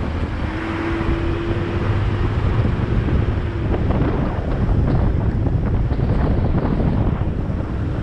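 Car climbing a steep uphill road: steady engine and road rumble with wind buffeting the microphone, and a faint steady whine for about three seconds near the start.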